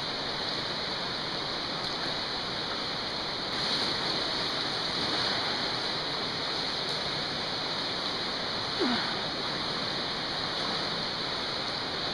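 Steady rush of creek water flowing through a canyon, slightly louder from about three and a half seconds in, with one short squeak about two-thirds of the way through.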